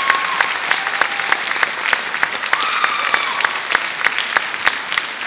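Audience applauding, dense irregular clapping, with a few voices calling out over it.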